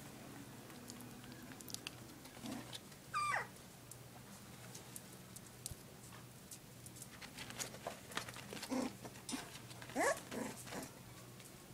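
Dachshund puppies, just over a month old, whining: one high cry falling in pitch about three seconds in and another rising cry near ten seconds, with light clicks and scratches between them.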